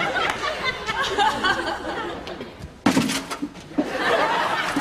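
Sitcom studio audience laughing after a punchline, with a sudden louder burst about three seconds in.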